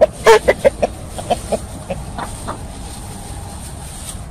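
Chickens clucking as they feed: a quick run of short clucks, loudest in the first second and thinning out by about two and a half seconds.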